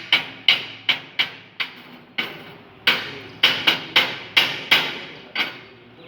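Chipping hammer striking a freshly welded stick-electrode bead on steel plate, knocking off the slag: a run of about a dozen sharp metallic blows, two to three a second, with a brief ring after each, stopping shortly before the end.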